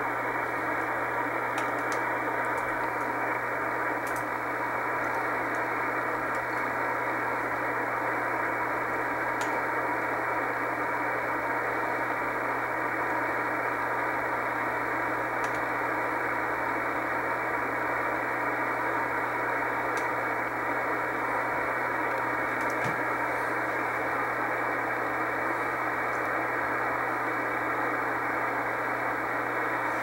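Shortwave communications receiver in CW mode giving a steady, muffled hiss of band noise, with a weak, very slow Morse code signal (about 7 or 8 words per minute) from experimental station WI2XJP on 5058 kHz, repeating its call and locator.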